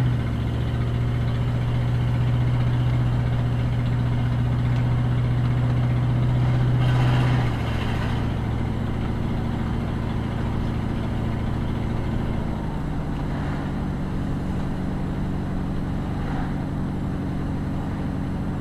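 Car engine humming and tyre noise heard from inside the cabin while driving slowly. The engine note eases off about seven seconds in and changes pitch again about five seconds later, as the car slows for a stop sign and moves off.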